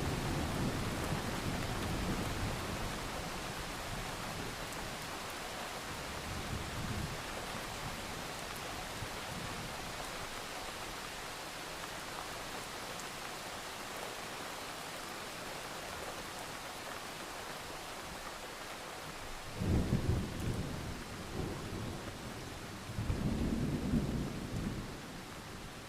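Steady rain falling through a thunderstorm. A low thunder rumble fades away in the first couple of seconds and a fainter one comes around a quarter of the way in. Two stronger rolls of thunder break in near the end, a few seconds apart.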